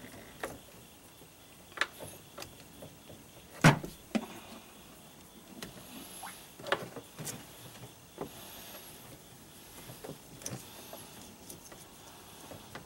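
Handling noise from the rigging of an Evinrude 225 V6 outboard: scattered clicks and knocks as cables, hoses and a rubber grommet are worked into the lower engine cowl, the loudest knock about four seconds in.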